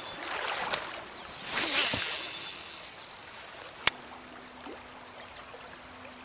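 Creek water running, with a fishing cast whooshing out about a second and a half in. A sharp click comes near the four-second mark, and then a faint steady hum as the topwater lure is reeled back.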